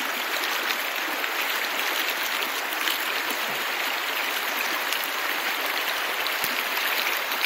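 Shallow, rocky stream running steadily over a riffle, an even, unbroken rush of water.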